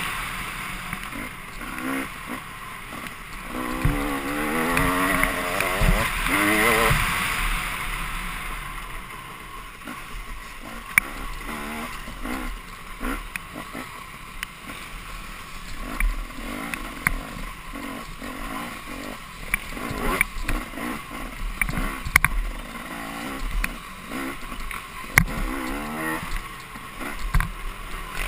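Dirt bike engine revving up and down, its pitch rising and falling in the first several seconds. After that it runs lower and choppier, broken by many sharp knocks and clatters as the bike goes over rocks and roots.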